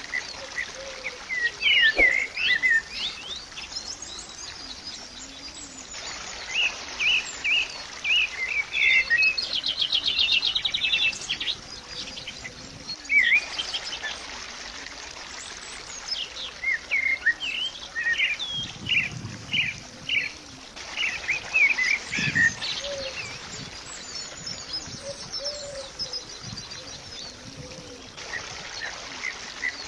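Small songbirds chirping and twittering, many short quick calls, with a rapid trill about ten seconds in.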